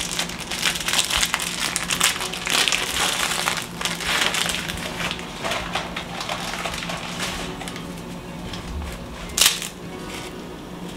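Plastic spaghetti packet crinkling and crackling as it is torn open and handled, dense for the first few seconds and then thinner, with a brief louder rustle near the end.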